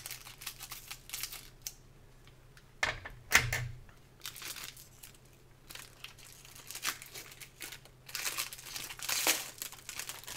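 Foil wrapper of a Topps baseball card pack crinkling and crackling as it is snipped open with scissors and handled while the cards are pulled out, in a string of short crackles with louder bursts about three seconds in and again around eight to nine seconds.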